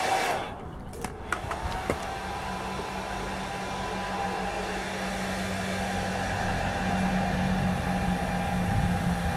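Handheld hair dryer blowing steadily, drying a layer of spray paint. There is a short dip and a few clicks about a second in.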